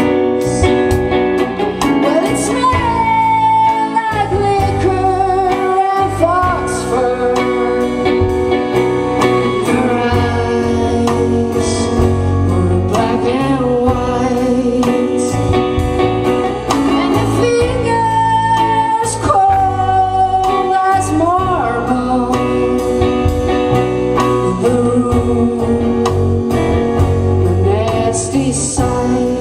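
A band playing live: a woman singing over guitar, bass and drums.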